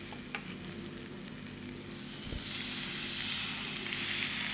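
Food sizzling on a hot ridged cast-iron sizzler platter under a grilled chicken steak and rice: a steady hiss that grows louder about two seconds in.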